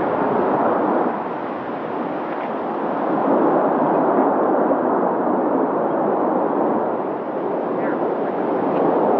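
Two F-18 Hornet fighter jets flying past, a loud rushing jet-engine noise that swells and eases several times as they pass.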